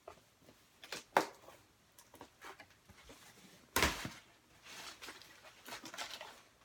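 A cardboard box being cut and opened: scattered clicks and scrapes of a blade and packaging being handled, with one louder burst of noise about four seconds in.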